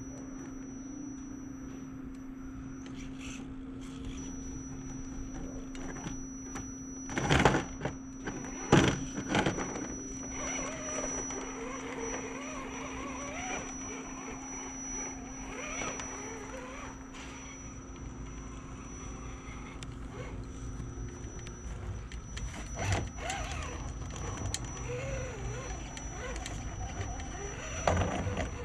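Electric motor and gearbox of an Axial SCX10 scale RC crawler whining as it crawls over sand and rock, over a steady low hum. A few loud knocks of the truck against the rocks stand out, two close together about a quarter of the way in and another near the end.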